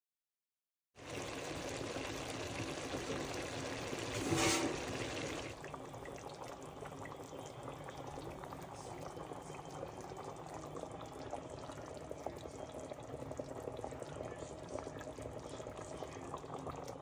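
Bolognese sauce simmering and bubbling in a large pot, a steady bubbling, with a short louder sound about four and a half seconds in.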